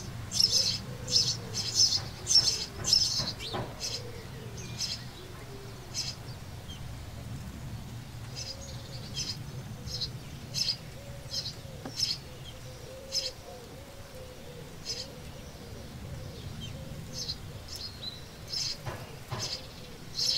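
House sparrows chirping at the nest under the roof, short high chirps in a quick series of about two a second for the first four seconds, then spaced out singly for the rest.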